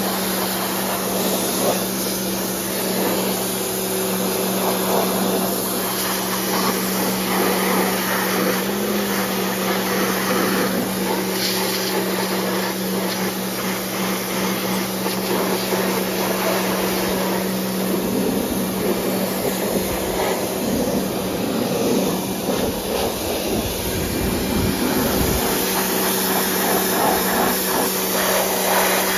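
Pressure washer running steadily, its pump motor humming under the hiss of the water jet spraying onto the mower's deck and engine. The hum weakens for a few seconds past the middle, then comes back.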